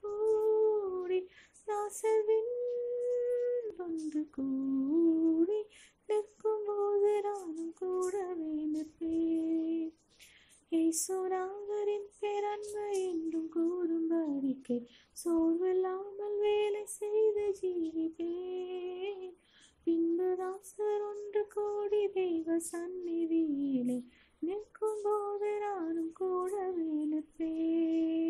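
A woman singing a slow Tamil Christian hymn solo, in phrases of a few seconds with short breaks between them, with no accompaniment audible.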